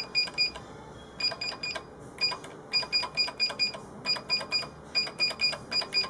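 Short electronic beeps from an Easycut control panel's keypad, one for each key pressed as numbers are typed in. They come in quick runs of about four a second with brief pauses between.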